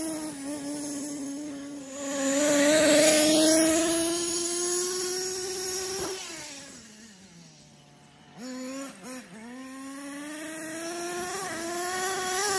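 Small nitro engine of a Hot Bodies Lightning GT 1/8-scale monster truck running at high revs, loudest a few seconds in. About halfway through the revs drop to a low idle, then come back with a few quick throttle blips and climb again near the end.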